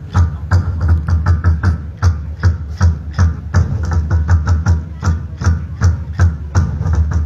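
A group of Vietnamese festival drums beaten together in a fast, steady rhythm of deep strikes, about three to four a second.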